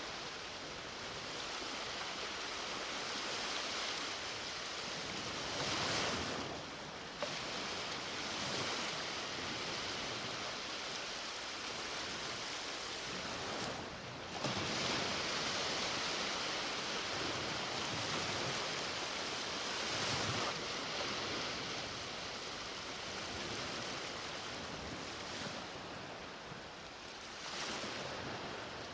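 Ocean waves breaking and washing up on a beach, a steady rushing surf with louder breakers about six seconds in, around fourteen seconds and again around twenty seconds.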